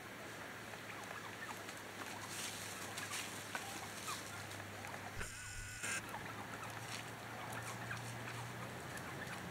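Wild turkeys foraging in dry leaf litter: scattered faint rustles and pecking clicks over a steady low hum, with a brief glitch in the sound a little past halfway.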